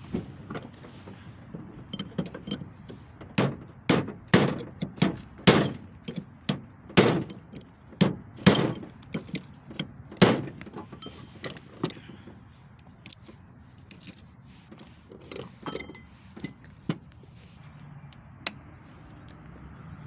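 A hammer striking a pin punch against a driveshaft U-joint, driving the old rusted bearing caps out of the yoke. About a dozen sharp metal-on-metal blows come at an uneven pace in the first half, then a few lighter taps and clinks.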